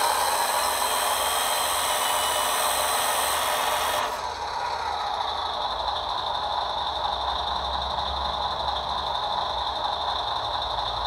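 RC truck's hydraulic system running steadily with a low rumble while the crane's rear support leg is lowered, with a high hiss over the first four seconds that then drops away.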